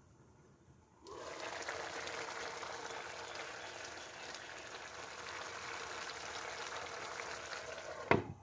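Pan of chicken and vegetables in sauce simmering and sizzling, suddenly louder about a second in as the glass lid is lifted off. Near the end the lid is set back on the pan with a sharp knock, and the sound drops back to quiet.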